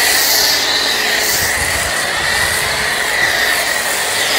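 Starq AWP 2.8 electric pressure washer running with a foam cannon, spraying shampoo foam onto the car: a steady hiss with a high, steady whine.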